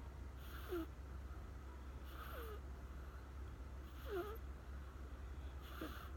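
American Shorthair kitten snoring faintly in its sleep: a soft breath about every two seconds, four in all, each with a short squeaky whistle that falls in pitch.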